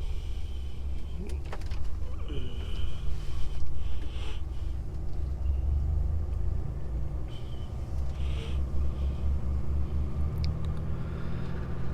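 Diesel engine and road rumble heard inside the cab of a DAF XF truck as it drives off, a steady low drone that swells and eases slightly.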